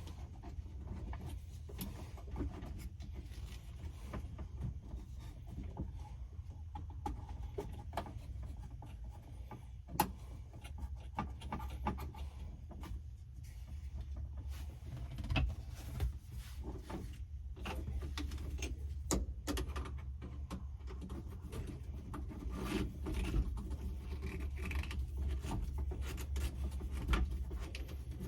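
Scattered small clicks, taps and rubbing from a screw being taken out and plastic dash-panel parts and cable tabs being handled by hand, over a steady low hum.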